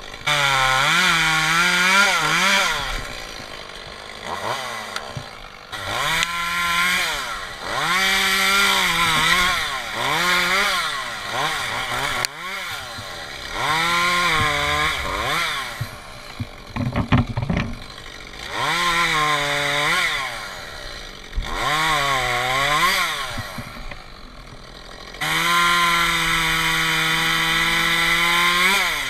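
Echo CS-271T top-handle two-stroke chainsaw cutting through maple limbs in about eight bursts of throttle, its engine note rising and falling and dropping back to idle between cuts. Near the end it holds one long steady full-throttle cut. A few sharp knocks come about two-thirds of the way through.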